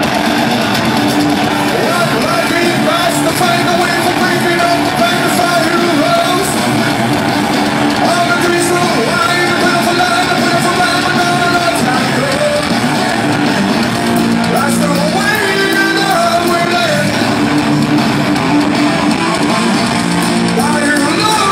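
Live heavy rock band playing loud: distorted electric guitars, bass and drums with a singer's voice over them.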